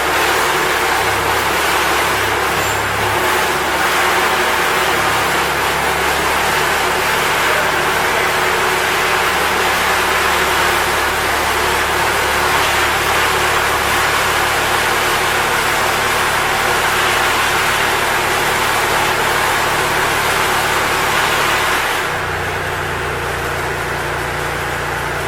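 Boxer 526DX mini track loader's 27-horsepower diesel engine running steadily as the machine is operated. About 22 seconds in, the engine note changes and the sound drops slightly in level, as if the revs are brought down.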